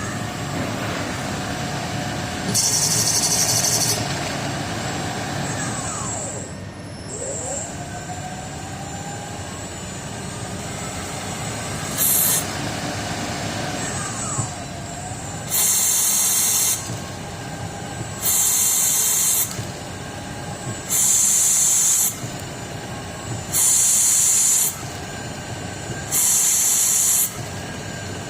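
Home-built CNC lathe running a program on brass stock: the spindle motor's whine rises and falls as the spindle speeds up and slows. In the second half, loud hissing bursts about a second long repeat roughly every two and a half seconds.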